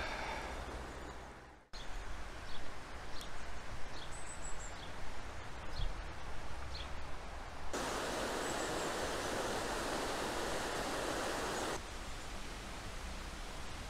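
Outdoor ambience: a steady rushing noise, with a few faint short high chirps in the first half. The noise gets louder for about four seconds in the middle, then drops back, changing abruptly each time.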